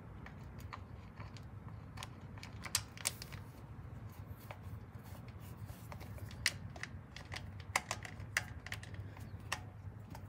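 Irregular light clicks and taps of a plastic-faced air filter element being handled and seated onto a motorcycle's air cleaner backing plate, a few sharper clicks among them, over a steady low hum.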